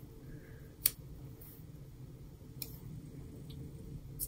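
Small scissors snipping sticker paper: one sharp snip about a second in, then a few fainter snips, over a low steady room hum.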